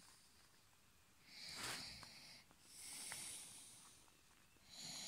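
A person's breathing close to the microphone, faint: three soft, hissy breaths, each about a second long and roughly a second and a half apart.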